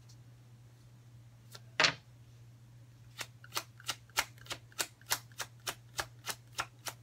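A deck of tarot cards shuffled overhand, a packet of cards slapping onto the rest about three times a second from about halfway through. A single louder snap of the cards comes a little before that.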